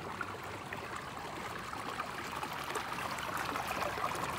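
Steady trickle of running water, with faint scattered splashes and ticks.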